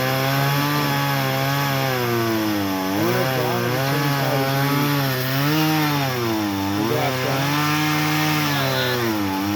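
Gas chainsaw running under load while cutting through a tree branch, its engine speed sagging several times as the chain bites into the wood and then picking back up. The onlooker thinks the chain is due for replacement.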